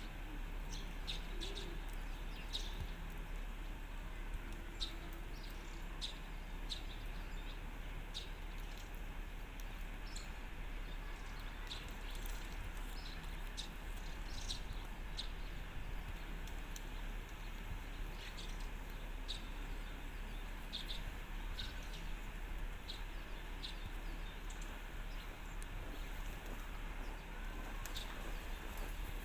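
Birds chirping: short, scattered high chirps over a steady background hiss and a low hum.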